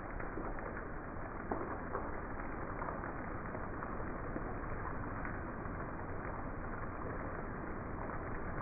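Steady heavy rain falling, an even hiss, with a couple of brief taps about a second and a half in.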